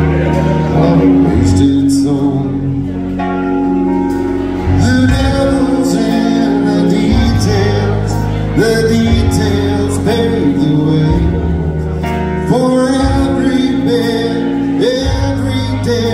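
Live country song: piano and bass guitar playing while a man sings.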